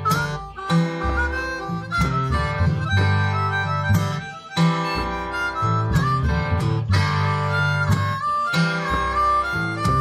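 Blues harmonica solo with bent notes, over a guitar playing a steady rhythm about once a second.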